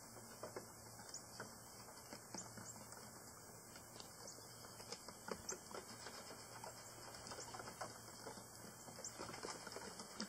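Goat hooves tapping and clattering on the wooden planks of a suspended bridge, in quick irregular steps, over a faint steady low hum.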